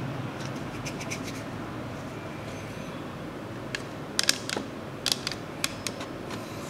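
Hard plastic clicks and rattles from hands handling a Play-Doh soft-serve ice cream machine toy, with a quick run of sharp clicks in the second half, over a steady background hiss.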